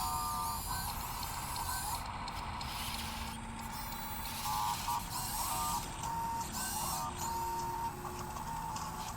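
Small electric motors and plastic gearboxes of radio-controlled construction models whining in short bursts, starting and stopping and sliding in pitch as the controls are worked.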